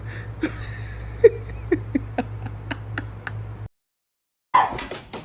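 A dog giving soft, quiet 'whisper barks': several short, low woofs spaced a fraction of a second apart over a steady low hum. The sound cuts off abruptly about three and a half seconds in, and after a short silence another, louder sound begins.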